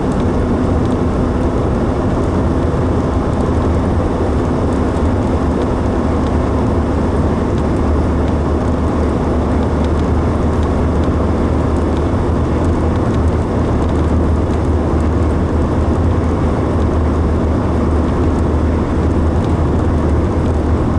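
Car driving at a steady speed, tyre and engine noise heard from inside the cabin as a loud, constant rumble with a low hum.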